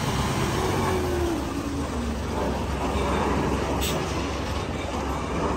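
Isuzu truck's diesel engine running steadily at idle, a low rumble.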